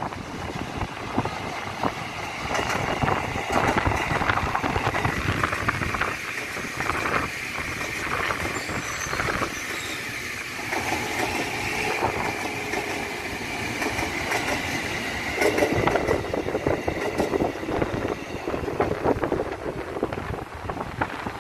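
A passing train, its wheels clattering steadily over the rails.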